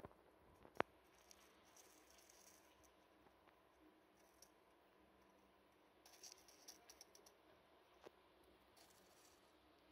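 Near silence: faint room tone with one sharp click a little under a second in and a few faint spells of light crackling ticks.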